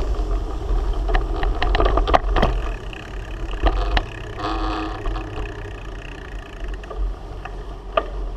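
Wind rumbling on a GoPro Hero 3's microphone while cycling, with scattered sharp clicks and rattles from the bicycle going over bumps.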